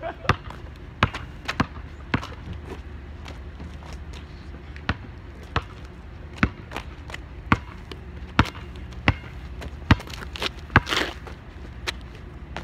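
Basketball bouncing on asphalt: single sharp bounces, roughly one a second and not quite even, as it is dribbled and retrieved. A brief, rougher clatter comes near the end.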